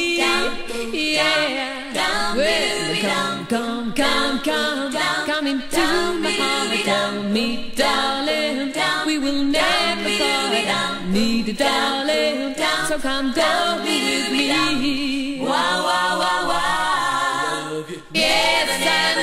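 Female vocal quartet singing a cappella in close harmony, in short rhythmic phrases. Near the end they hold a long chord, break off for a moment and come straight back in.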